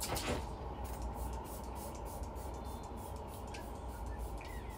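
Fine-mist face spray bottle pumped at the face in a quick run of short spritzes, the strongest right at the start, over a steady low hum.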